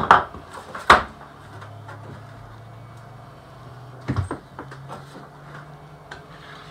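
Sharp knocks and clatters on a workbench as the mat cutter's cutter head and the freshly cut foam core boards are set down and moved. There are two loud knocks in the first second, another burst of knocks about four seconds in, then a few light taps.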